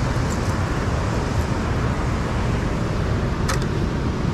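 A steady, low rushing roar with a short sharp click about three and a half seconds in.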